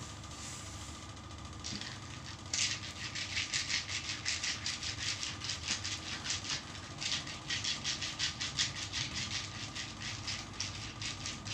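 Hands rubbing a bare foot and ankle during a traditional massage: quick rhythmic strokes of palm on skin, a brushing hiss about five times a second, starting a couple of seconds in and pausing briefly midway. A steady low hum runs underneath.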